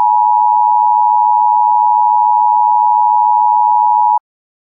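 Emergency Alert System attention tone: one loud, steady electronic tone just under 1 kHz that cuts off suddenly about four seconds in.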